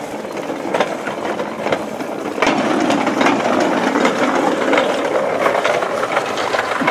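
Hand-pushed double-bogie wagon on a home-made narrow-gauge railway rolling along, its steel wheels rattling and clicking over the steel rails, louder from about two and a half seconds in.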